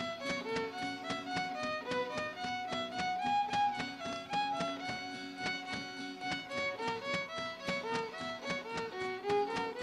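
Violin-led folk band playing a jarabe for dancing: a lively fiddle melody moving in quick steps over a fast, steady beat.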